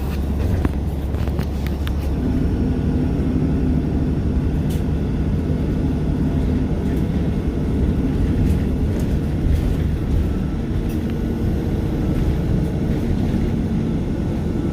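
City bus engine running with a steady low hum.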